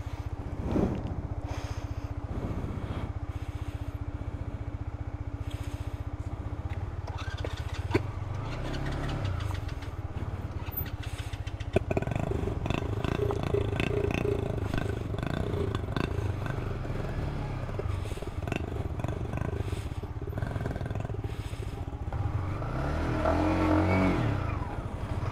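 Yamaha MT-15's single-cylinder engine running at low speed as the motorcycle picks its way along a rough, rocky dirt trail. The revs rise about eight seconds in and again near the end, and there are two sharp knocks, about eight and twelve seconds in.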